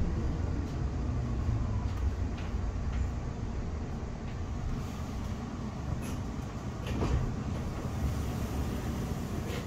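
Cabin noise inside a Škoda Artic low-floor tram: a steady low rumble and hum from the car, with a few sharp clicks and knocks about six and seven seconds in.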